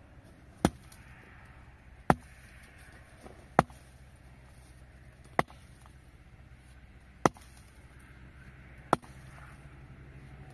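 Chopping: six sharp single strikes, one about every one and a half to two seconds, each cutting off quickly.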